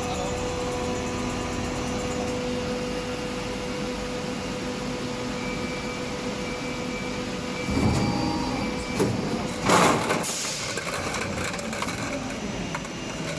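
Steady mechanical hum of a running PET preform injection moulding machine on trial. About eight seconds in it grows louder, and near ten seconds there is a short loud rush of noise and clatter.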